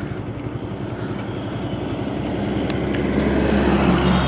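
Yamaha FZ-S V2.0's single-cylinder engine running at idle as the bike rolls to a stop, with a steady engine hum that grows louder over the last couple of seconds.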